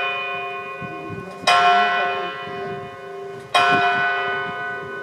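Cathedral clock-tower bell struck by its jacquemart automaton, tolling the hours at noon. Two strokes fall about two seconds apart, each ringing out and slowly fading over a steady hum from the stroke before.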